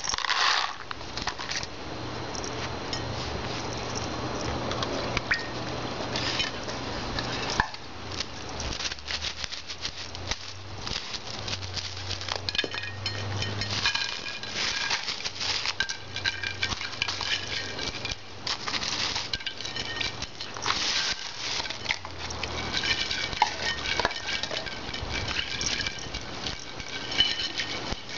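Ice cubes clinking and water splashing in a plastic bowl as a raccoon paws and dabbles among them, with a softer pouring wash for the first several seconds and many small sharp clinks throughout.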